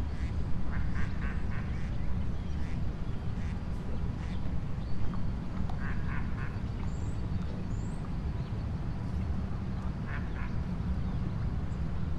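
Ducks quacking on open water in three short series of calls, about a second in, around six seconds and around ten seconds, over a steady low rumble.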